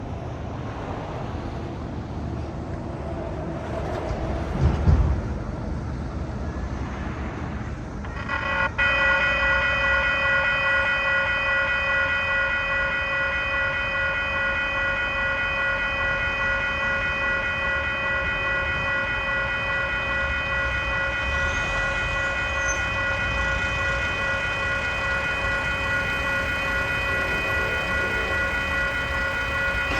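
Western-Cullen-Hayes grade-crossing warning bell switches on about eight seconds in and rings steadily, signalling an approaching train. Before it starts there is a low outdoor rumble with a loud thump about five seconds in.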